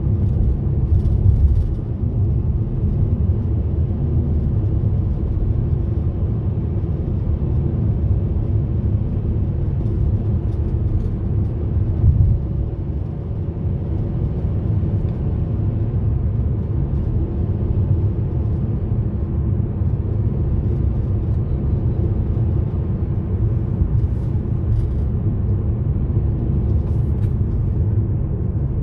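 Car driving at a steady speed on an open road, heard from inside the cabin: a steady low rumble of tyres and engine, with a brief louder bump near the middle.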